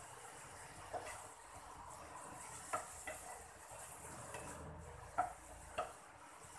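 Wooden spatula stirring and scraping mushroom curry masala as it fries in a pan, with a soft steady sizzle and a few sharp knocks of the spatula against the pan.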